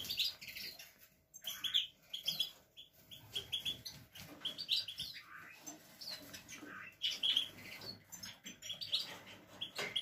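Several caged finches chirping and calling at once: many short, high chirps in an irregular scatter, some overlapping.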